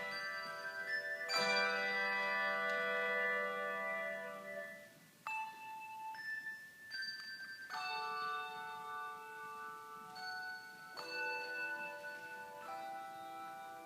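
Handbell choir playing a slow passage: chords of handbells rung together and left to ring, a new chord every few seconds. A few single bell notes sound in a softer stretch near the middle.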